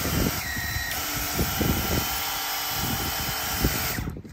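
Battery-powered cordless pressure washer running, its small electric motor and pump whirring under the steady hiss of the water jet spraying against a boat hull. The sound cuts off sharply near the end.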